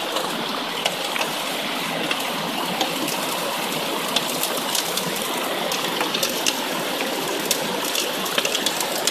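Water gushing steadily down a metal sluice box over its riffles, with frequent small sharp ticks throughout. The flow is one the miner judges unbalanced, with not enough water coming through.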